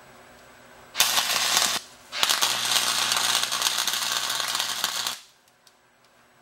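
Wire-feed welder arc crackling in two bursts: a short one about a second in, then a longer one of about three seconds, welding onto the end of a steel rod.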